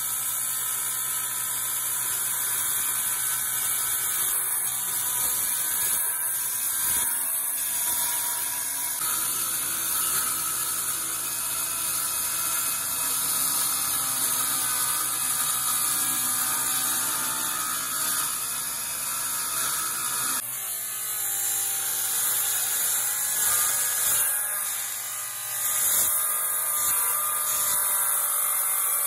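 Fujihama handheld electric circular saw running and cutting through plywood: a steady, high-pitched motor whine with the hiss of the blade in the wood. The sound shifts about two-thirds of the way through as a new cut begins.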